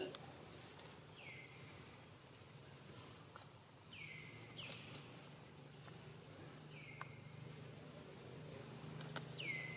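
Steady insect drone with a low background hum, and five short animal calls that each fall quickly in pitch and then level off, spaced a second to a few seconds apart.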